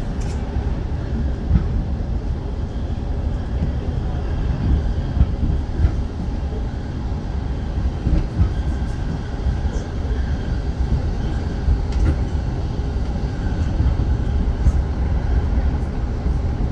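JR Chuo Line Rapid train running between stations, heard from inside the car: a steady low rumble of wheels on the rails with faint scattered clicks.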